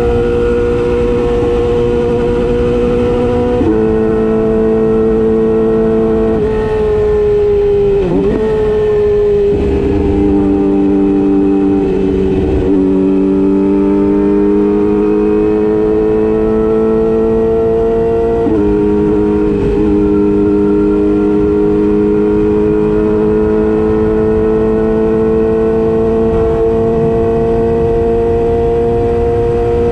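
Yamaha YZF-R6's inline-four engine running at steady moderate revs. Its pitch steps down sharply near 4 seconds and again a little past the middle, wavers and dips in between, and then climbs slowly.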